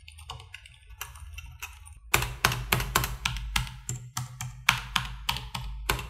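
Typing on a Leopold FC900R PD mechanical keyboard with Cherry MX Silent Red (MX Pink) switches, its key presses dampened. The typing is light and sparse at first, then quicker and louder from about two seconds in.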